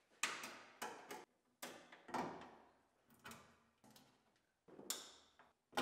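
Plastic wiring-harness push clips snapping into holes in a bare sheet-metal liftgate: a string of about nine sharp clicks at irregular intervals, some with a brief ring.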